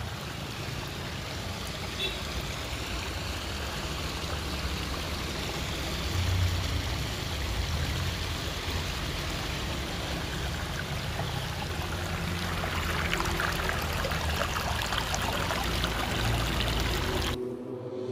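A small garden-pond waterfall splashes steadily over stacked river stones into the pond. Near the end the water sound cuts off and music begins.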